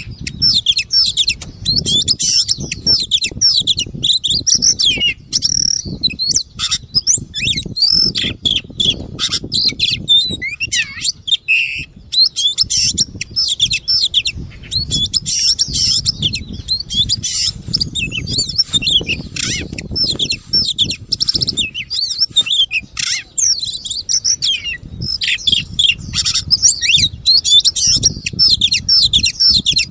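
Oriental magpie-robin (kacer) singing a rapid, nearly continuous run of varied chirps and short whistles, over a low background rumble.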